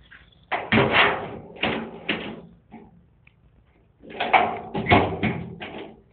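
A thin door banging and rattling in two bursts of quick knocks, the first about half a second in and the second about four seconds in.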